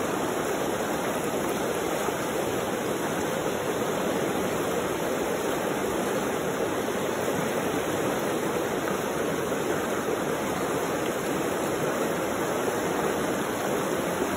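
Fast-flowing mountain river rushing over rocks and gravel, a steady, even rush of water.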